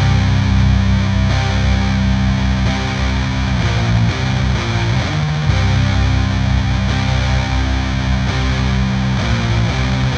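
Band music led by distorted electric guitar run through effects, playing held chords that change every second or two.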